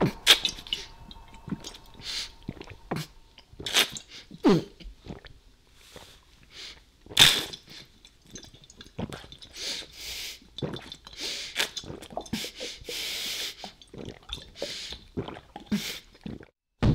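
A man gulping liquor straight from a bottle: irregular swallows and sharp, breathy gasps, with one falling voiced sound about four and a half seconds in.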